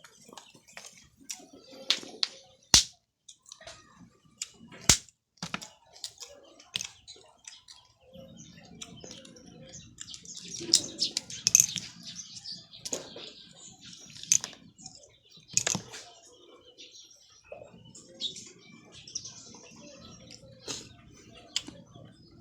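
Close-up eating sounds: scattered sharp clicks and knocks, two loud ones within the first five seconds, with a cluster of crackly ticks about ten to twelve seconds in.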